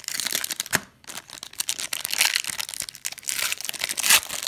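Metallic foil wrapper of a Panini Rookies & Stars football card pack crinkling and tearing as it is ripped open by hand, with louder crackles about two seconds in and near the end.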